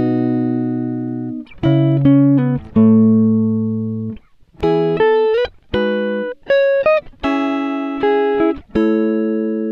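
Guitar music: plucked chords that ring out and fade, with quick runs of short notes between them.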